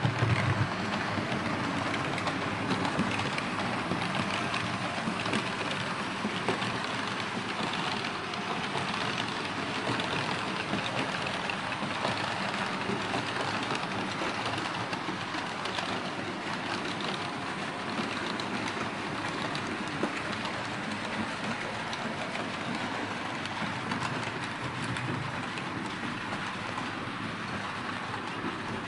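Märklin H0 model trains running on metal M-track: a steady rolling clatter of small wheels on the rails, with the hum of the running gear.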